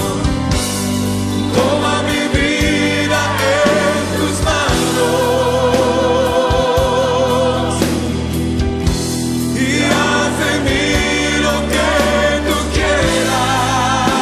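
Spanish-language Christian worship song: voices singing held, wavering notes over steady instrumental backing.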